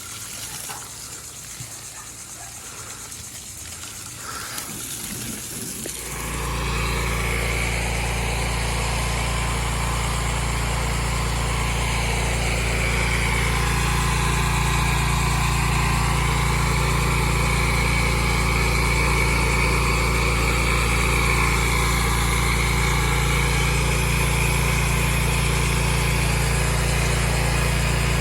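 A pressure washer's engine running steadily, with the hiss of the spray over it. It comes in loud and sudden about six seconds in, after a quieter stretch of hiss.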